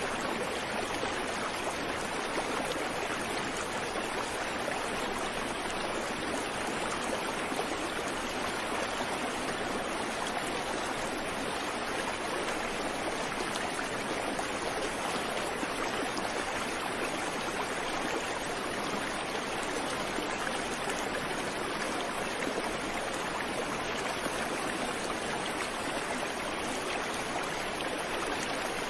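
A creek running: steady rushing and babbling of flowing water, with no birdsong.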